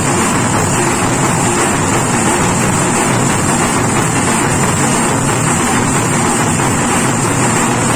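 Jamab folk percussion troupe playing: many drums beaten with sticks and large hand cymbals clashing together, loud and continuous without a break.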